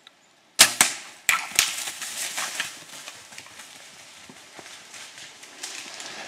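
A Hoyt compound bow fires with a sharp crack about half a second in, followed by several quick knocks. Then comes a stretch of crackling and rustling as a shot black bear crashes off through brush and dry leaves.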